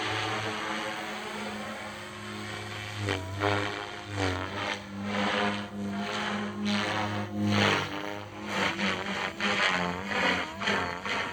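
SAB Goblin 380 electric RC helicopter in 3D flight: the rotor and motor whine steadily, shifting in pitch. From about three seconds in, repeated loud whooshing surges come as the blades bite on hard manoeuvres.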